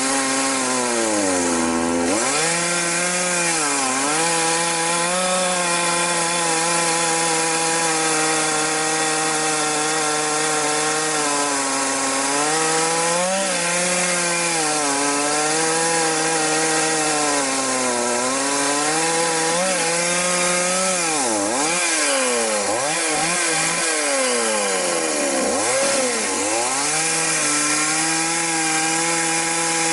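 Chainsaw running hard while ripping a log lengthwise. Its engine note is steady but dips and recovers every few seconds, with several deeper, quicker dips about two-thirds of the way through.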